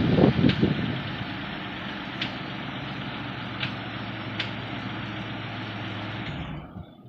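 Mitsubishi 3000GT's V6 engine running: an uneven low rumble in the first second, then settling into a steady idle with a few light ticks, stopping shortly before the end.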